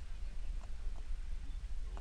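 Wind buffeting an action camera's microphone, a low, uneven rumble, with a few faint ticks on top.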